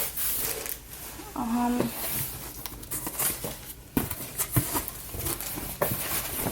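A cardboard box and its paper packing being opened by hand: irregular crinkling, rustling and tearing with small knocks and clicks, and a brief hum-like voice sound about a second and a half in.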